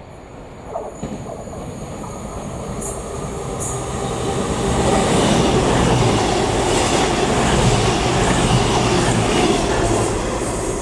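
CrossCountry Voyager diesel multiple unit passing at speed: engine and wheel noise builds as it approaches, with a couple of sharp clicks about three seconds in. It is loudest from about five seconds in as the coaches go by.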